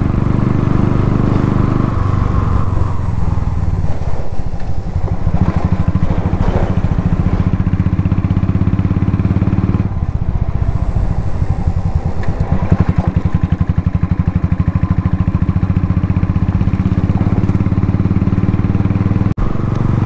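Royal Enfield Thunderbird 350X's single-cylinder engine running steadily under way, with fast even firing pulses. The engine note shifts about two seconds in and again near the middle.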